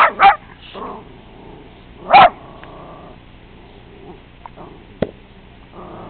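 Segugio hound barking: two quick loud barks at the start and a single bark about two seconds in. A sharp click comes about five seconds in.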